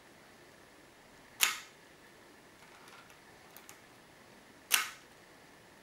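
Zorki 3C rangefinder's cloth focal-plane shutter released twice, about three seconds apart: each a single short, fairly dull click with a brief tail. Two faint ticks come in between.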